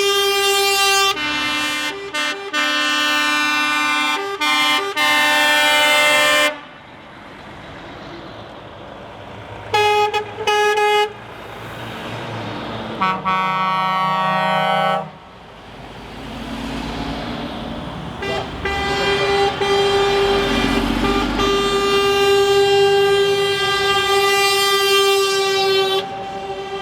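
Truck horns honking one after another as trucks pass. There are long held blasts, with several horns sounding together at times, short toots about ten seconds in, and a low rumble from a passing truck in the latter part.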